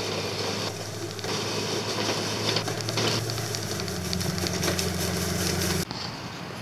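Pickup truck engine running steadily as the truck pushes a front-mounted grader rake through loose mud and gravel, with a gritty scraping noise over the engine hum. The sound cuts off abruptly near the end.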